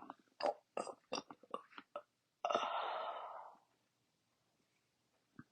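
A few short wet mouth clicks, then a loud, breathy rush of air from the mouth lasting about a second and fading out, from someone bloated after a big meal trying to burp.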